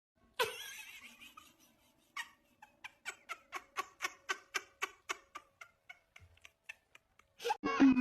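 A short animal sound, then a steady run of light ticks, about four a second, that fade out near the end.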